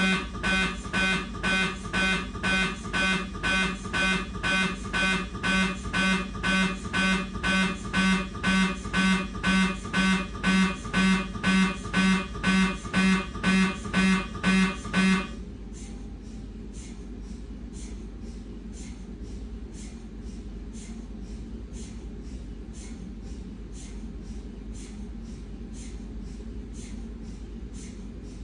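Siemens MAGNETOM Lumina 3 T MRI scanner's gradient coils running a T2 BLADE fat-saturated transverse sequence: loud, evenly spaced buzzing beeps about twice a second. About halfway through, this cuts off suddenly into a much quieter, faster ticking.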